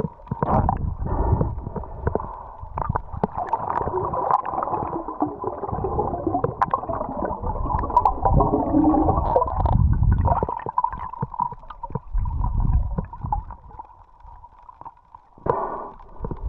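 Underwater sound picked up by a camera in the sea: water gurgling and sloshing in uneven surges, with many short sharp clicks scattered through it.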